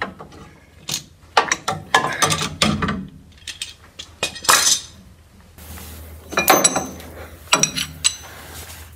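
Irregular knocks and clatter of metal tools being handled: the clamp, timber block and socket wrench coming off the starter dog nut. In the second half come several sharp, ringing metal clinks.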